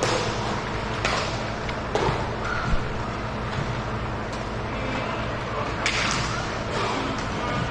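Ice hockey play on a rink: sharp scrapes of skate blades on the ice and knocks of sticks and puck. Three come about a second apart near the start and another near the end, over a steady hum of rink noise.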